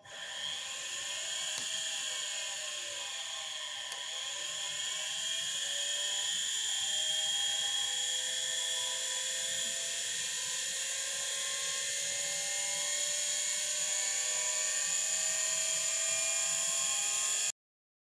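Samsung washing-machine universal motor spinning with no load, driven from a bench power supply: a steady whine with brush hiss that climbs slowly in pitch as the supply voltage is turned up. It cuts off suddenly near the end.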